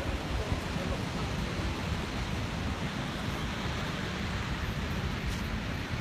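Steady rush of Victoria Falls running at low water, with wind buffeting the microphone.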